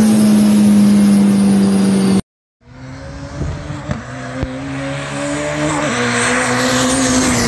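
Car engine held at steady high revs, heard from inside the cabin. After a sudden cut, cars speed toward the listener along a road, their engine note building and rising in pitch as they near.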